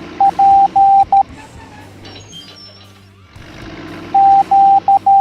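Morse code beeps: a single steady tone keyed on and off in short dots and longer dashes, in two groups of about four to five beeps each, one near the start and one near the end, over background music.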